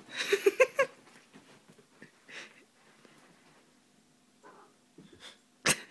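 A cat scrambling onto a bed, with a burst of rustling bedding and a few short pitched sounds in the first second. Then quiet room sound, and a single sharp knock near the end.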